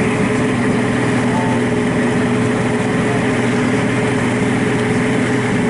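Boat engine running steadily at a constant pitch, a continuous mechanical drone.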